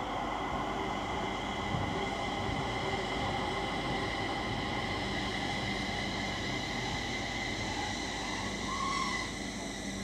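JR East 701 series 5500 sub-series electric train rolling slowly into a station: a steady rumble of wheels on rail under several steady, high-pitched whining tones, with a short higher tone near the end as it comes to a stop.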